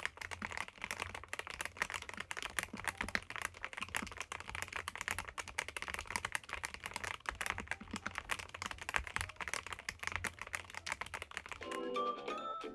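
YUNZII B75 Pro gasket-mounted mechanical keyboard, with YUNZII Milk switches and PBT double-shot keycaps, being typed on fast and steadily in a dense run of keystrokes. Music comes in near the end.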